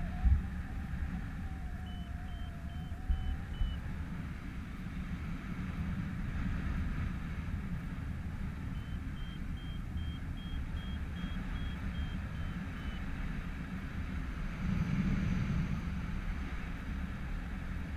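Steady wind rush on the microphone in flight, with a paragliding variometer's climb beeps, about three a second: a short run about two seconds in and a longer one from about nine to thirteen seconds in, the pitch rising slightly and then falling. The beeping is the sign of the glider climbing in lift.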